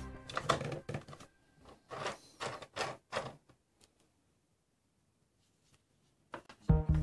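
Hard plastic toy playset parts clicking and knocking as they are fitted and snapped together: several sharp clicks in the first three seconds, then silence. Background music comes back in near the end.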